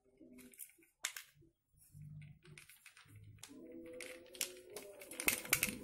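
Plastic clicks and rattles of PVC pipe pieces and fittings being handled and fitted together, with a small glue tube being opened and set down; the clicks get denser and louder near the end. A faint steady hum comes in about halfway.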